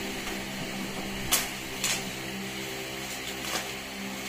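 Scissors cutting through packing tape and plastic wrapping on a parcel, with two sharp snips or rips about a second and a half and two seconds in and a lighter one later, over a steady low hum.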